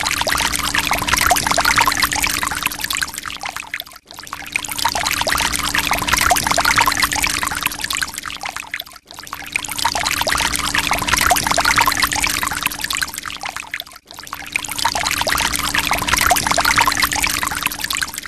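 Water pouring steadily, a short recording looped about every five seconds: each pass swells up and fades, then cuts off briefly before the next. A faint steady hum runs underneath.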